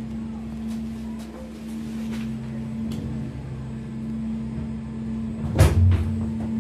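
Gondola lift station machinery heard from inside a cabin moving through the station: a steady hum with a few faint rattles, and one loud clunk about five and a half seconds in.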